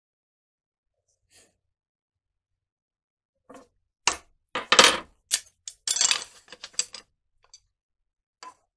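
Toasted bamboo cane being split with a knife: a quick run of sharp cracks and snaps as the fibres part, starting about three and a half seconds in and lasting some three seconds, then a few faint ticks.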